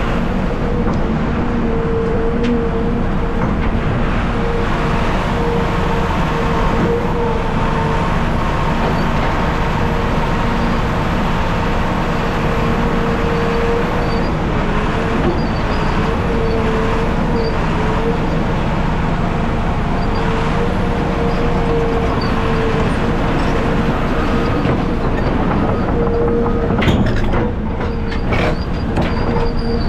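Steady drone of heavy diesel machinery, a CAT 740B articulated haul truck and a CAT excavator running at the dig, with a steady whine over it. A few sharp knocks come near the end.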